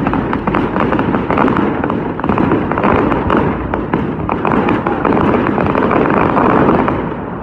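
Fireworks display going off: a dense, continuous stream of crackling pops and bangs, easing off slightly near the end.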